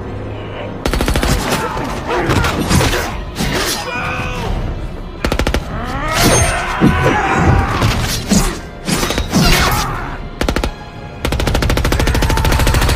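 Film-soundtrack bursts of rapid automatic rifle fire, the longest starting near the end, mixed with a dramatic music score and other loud action sounds.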